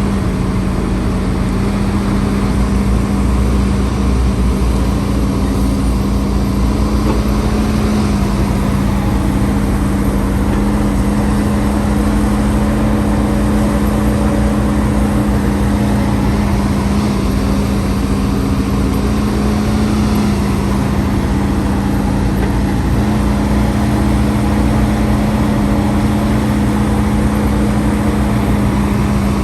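Hidromek HMK230LC excavator's diesel engine running steadily at a constant pitch while it works.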